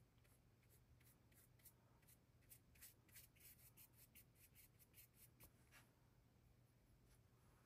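Faint, quick scratching of a paintbrush's bristles working oil paint on a canvas board, a few strokes a second, over very quiet room tone.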